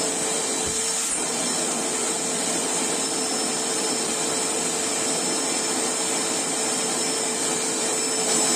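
Black+Decker 1400 W wet-and-dry vacuum cleaner running at full speed, a steady motor whine over the rush of air, while it sucks up scattered waste.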